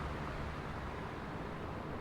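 Three oscillating electric fans running together: a steady rush of air with a faint low hum underneath.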